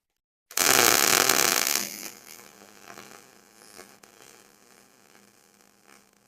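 MIG welder arc crackling against the ATV's steel frame in a loud burst about a second and a half long, then fading to a quieter crackle with a faint hum before cutting off near the end.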